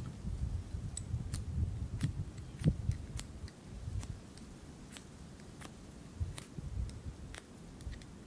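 Ferro rod scraped with a striker over a tinder bundle, giving sharp short scrapes at an uneven pace, about one every half second to a second, while trying to throw sparks to start a fire. A low rumble underneath fades after about three seconds.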